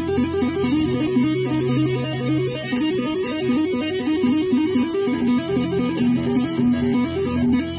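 Harmony Silhouette electric guitar playing a lead line of quick single notes, with a low note sounding under them for the first few seconds, then moving into longer held notes a little past halfway.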